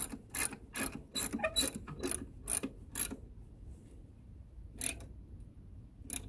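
Socket ratchet wrench clicking as a 12 mm alternator bracket bolt is run in: rapid clicks about twice a second for three seconds, then two more single clicks near the end.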